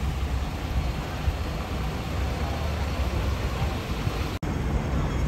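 City street traffic noise: a steady low rumble of passing vehicles, cutting out for an instant about four seconds in.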